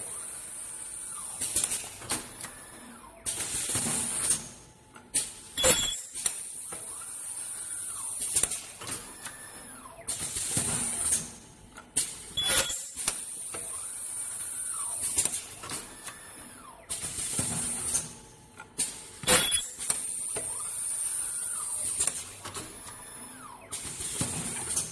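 Automatic ultrasonic plastic welding machine running its cycle: sharp mechanical clacks about every seven seconds, stretches of a high-pitched squealing hiss, and motors whining up and down between them.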